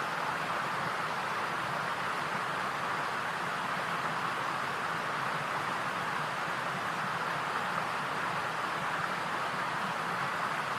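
Steady, unchanging hiss, strongest in the middle range, with no distinct events.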